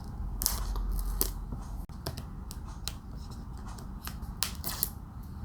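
Paper seal stickers being peeled off the back of an iPhone 13 Pro box: scattered small clicks and crackles of the seals tearing away, with the rustle of the box being handled.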